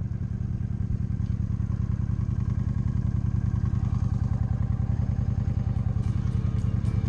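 Honda Shadow 750's V-twin engine running at a steady cruise, a low, evenly pulsing exhaust note.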